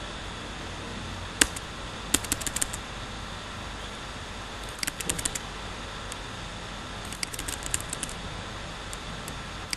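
Computer keyboard keys clicking in short quick bursts. There is a single click about a second and a half in, then clusters of keystrokes at about two, five and seven to eight seconds, over a steady background hiss.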